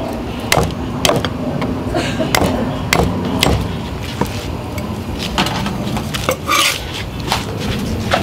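Cleaver chopping on a thick wooden chopping block: about a dozen sharp, irregular knocks as it cuts and smashes fresh root and lemongrass stalks.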